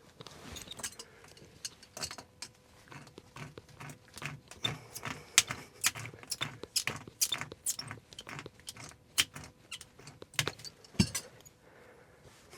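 Irregular sharp clicks, taps and small knocks of tools and plumbing parts being handled, several a second, the busiest stretch in the middle.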